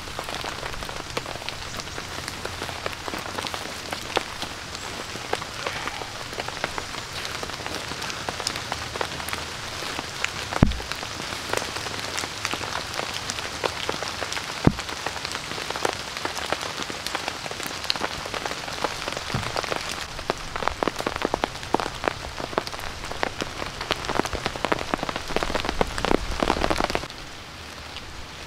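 Steady rain pattering on a tarp shelter, with many sharp individual drop hits and two heavier thuds about 10 and 15 seconds in. The rain gets quieter near the end.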